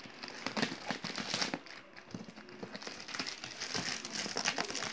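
Clear plastic wrap around a cardboard box crinkling and crackling as scissors cut and pull through it, with many small snips and rustles.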